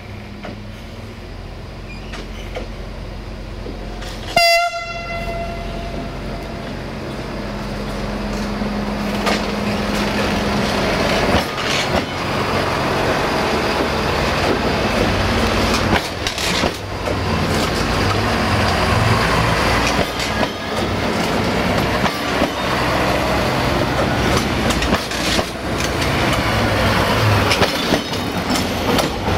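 Two coupled Siemens Desiro VT642 diesel multiple units. One short horn blast comes about four seconds in, then the train approaches with its diesel engines growing louder and passes close by, its wheels clicking over the rail joints.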